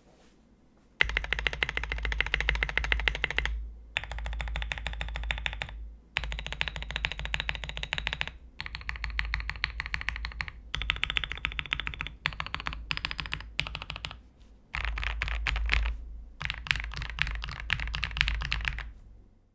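Typing test on a KBD67 Lite mechanical keyboard with lubed and filmed Tealios linear switches and SA-profile keycaps: rapid runs of keystrokes with a deep, super thocky clack, in about seven takes separated by short pauses.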